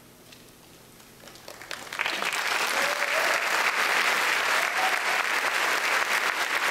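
Audience applause in a concert hall, breaking out about a second and a half in after a quiet pause at the end of a choral piece, then rising quickly and holding steady, with a couple of brief whoops.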